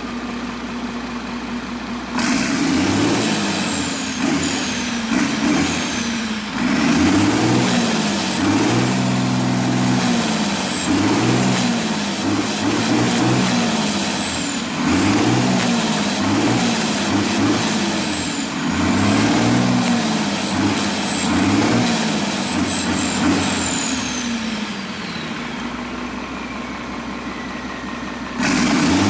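Rebuilt turbo diesel engine of a Fendt Favorit 818 tractor being revved up and down repeatedly from idle, with the turbocharger whistle rising and falling alongside. Near the end it drops back to idle as the turbo whistle falls away, then there is a short burst of throttle before the sound cuts off sharply.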